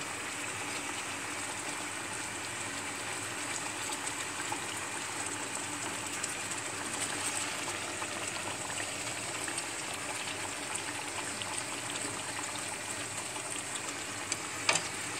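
Tuna steaks simmering in olive oil and red wine in a frying pan, a steady sizzle and bubble, with a few light taps of a plastic spatula against the pan.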